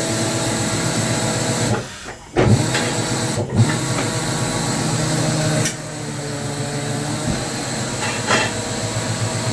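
Compressed-air tool running with a loud, steady hiss and a hum, briefly cutting out about two seconds in and again a little later before running on.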